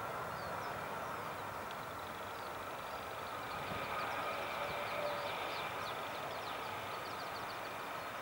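Jet turbofan engines of an Airbus A330 MRTT (RAF Voyager) at low thrust on final approach and touchdown: a steady rushing hiss with a thin whine, swelling slightly in the middle. Short high chirps sound over it.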